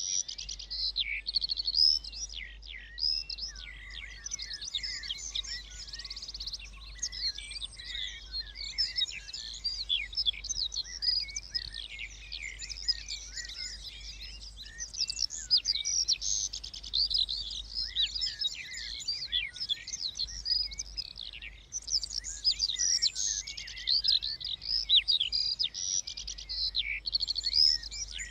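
Several songbirds singing together: a dense chorus of overlapping high chirps and quick trills that goes on without a break.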